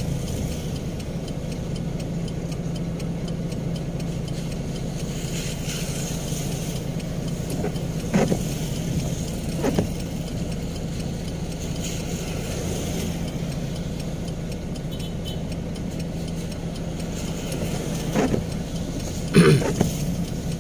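Heavy diesel engine idling steadily, with a few brief louder swells as vehicles pass close by.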